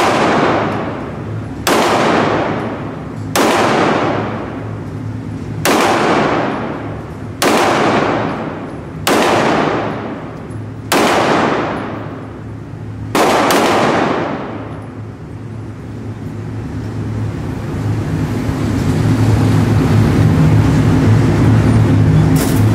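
Handgun firing about eight single shots, roughly one every two seconds with the last two in quick succession, each echoing off the indoor range. After the shooting stops, a steady low hum grows louder.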